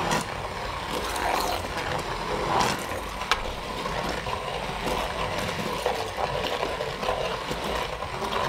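Handheld immersion blender running steadily, puréeing a pot of cooked cauliflower and potato soup, with a few sharp clicks along the way.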